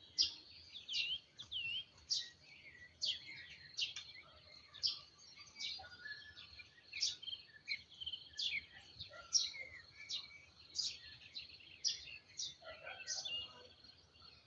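Songbirds singing outdoors: a steady string of short, sharp chirps and whistled notes, one about every half second, over a faint steady background.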